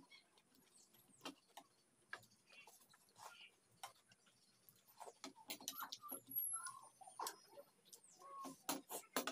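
Faint eating sounds: metal forks tapping and scraping on plates and mouth clicks from chewing noodles, scattered light clicks that grow busier in the second half.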